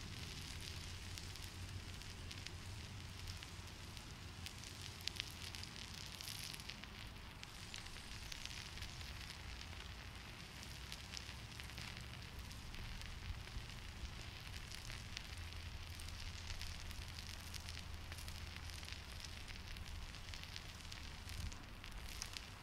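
Sausage sizzling on a hot rock set in campfire embers: a steady hiss with frequent small pops and crackles.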